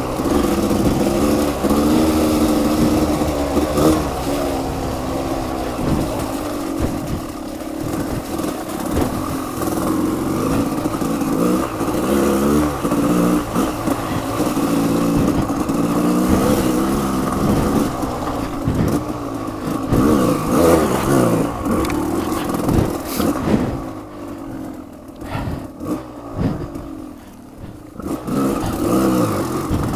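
Off-road motorcycle engine revving up and down continuously as it is ridden over a slippery, muddy trail. It drops to quieter, lower running for a few seconds late on, then picks back up near the end.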